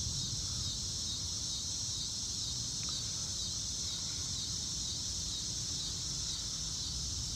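Steady, high-pitched chorus of insects chirring without a break, over a low background rumble.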